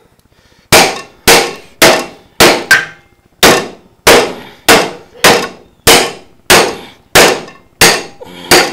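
Hammer blows on a stuck steel wheel hub, driving it off the rear axle of a Snapper riding mower: a steady run of about fourteen sharp, ringing metal clangs, a little over one and a half a second.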